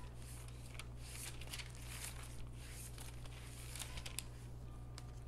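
Faint rustling of thin Bible pages being leafed through, a series of short soft swishes, over a steady low hum.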